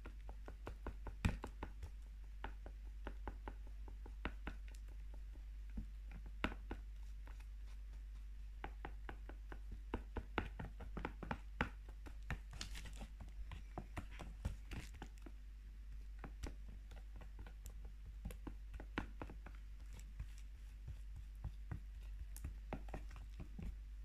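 Chopsticks stirring a thick flour-and-shampoo slime mixture, making irregular light clicks and taps, several a second at times, over a steady low hum.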